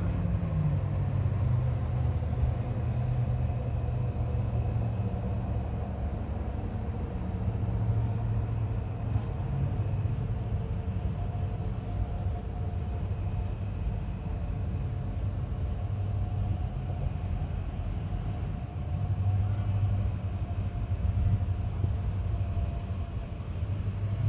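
A motor vehicle running steadily, a continuous low engine and road rumble whose engine note shifts slightly in pitch now and then.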